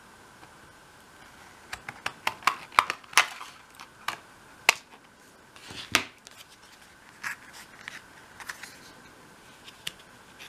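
Scissors cutting a thin acetate plastic sheet: a series of sharp snips and crisp clicks, spaced out unevenly, followed by lighter clicks and rustles as the stiff plastic sheet is handled.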